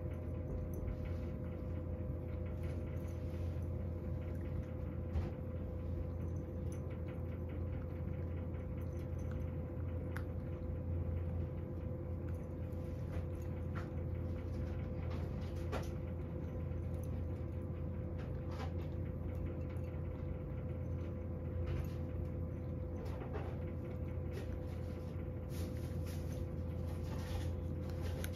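A cat chewing dry kibble from a ceramic bowl: irregular small crunches and clicks over a steady low hum.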